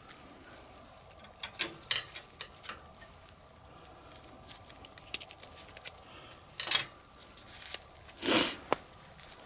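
Gloved hands handling a small new sealing washer and its plastic packaging, cut open with scissors: scattered small clicks and rustles, with a few louder snaps and a short crinkle near the end.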